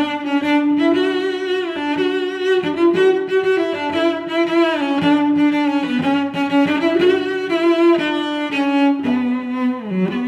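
Background music on bowed strings: a melody of held notes that change every second or so, some with a wavering pitch.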